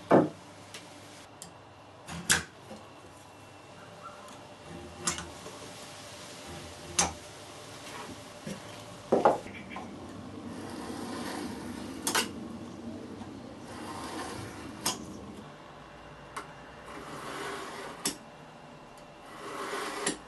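Woodworking bench sounds: about eight sharp knocks and clacks of wood and tools being set down and handled, the loudest right at the start, with stretches of rubbing or scraping between them, longest in the middle.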